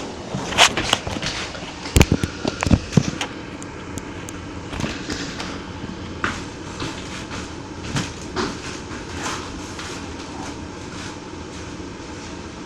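Irregular knocks and clatter, thickest in the first three seconds and sparser afterwards, over a steady background hum.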